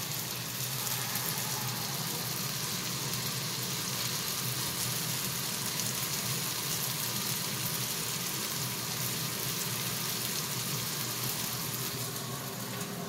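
Food frying in hot oil: a steady sizzle that eases a little near the end.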